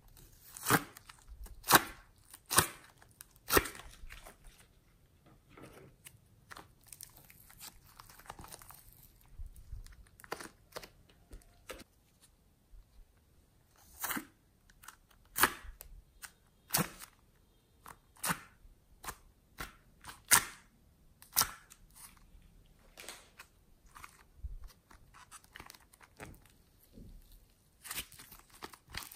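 Thin plastic clay tubs being handled and opened: irregular sharp clicks and crackles of the plastic, loudest in the first few seconds and again around the middle.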